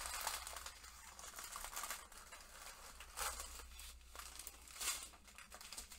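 Faint crinkling of thin plastic bags of diamond-painting drills being handled and unfolded, in a few short, irregular rustles.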